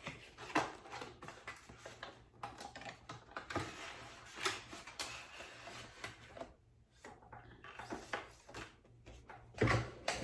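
Product box being opened and unpacked by hand: cardboard and paper rustling with scattered light taps and clicks, and a louder knock near the end.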